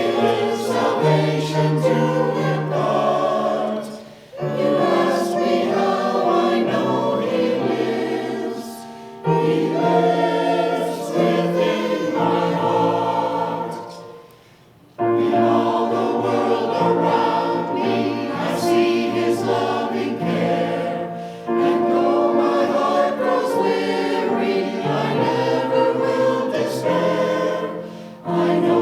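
Choir singing a song of praise in a worship service, phrase by phrase, with short breaks between phrases and a longer pause about halfway through.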